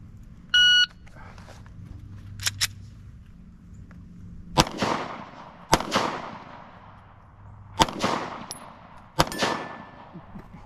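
Electronic shot-timer beep starts a timed handgun run. Two fainter cracks close together follow about two seconds later, then four loud pistol shots a second or two apart, each echoing.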